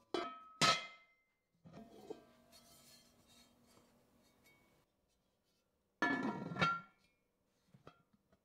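Cast iron Lodge Double Dutch Oven pot and its skillet lid clanking against each other as they are lifted apart and set back down, each knock leaving a short metallic ring. Knocks come at the start, about two seconds in, and again about six seconds in.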